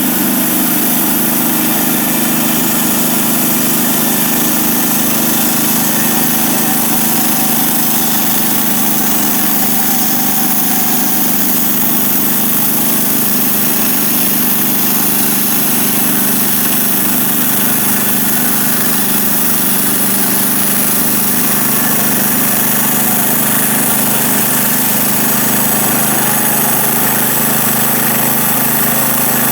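A homemade sawmill's 14 hp Kohler engine running steadily at a constant speed, driving the mill's saw through a cut.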